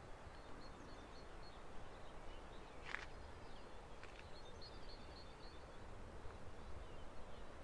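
Faint outdoor ambience: small birds chirping in short, repeated high calls over a low, steady rumble, with a single sharp click about three seconds in.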